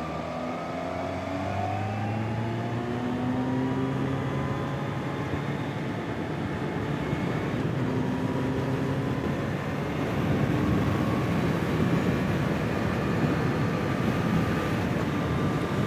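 Kawasaki Z H2 SE's supercharged inline-four pulling away and accelerating. Its engine note rises over the first few seconds, then holds steadier, while wind rush on the helmet microphone grows louder.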